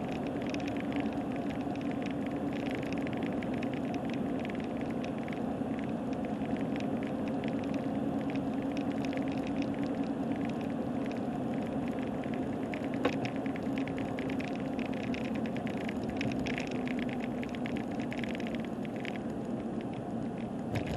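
Car cabin noise while driving: a steady drone of engine and tyres, overlaid by a dense patter of small rattles from the camera over a rough road. One sharper click comes about 13 seconds in.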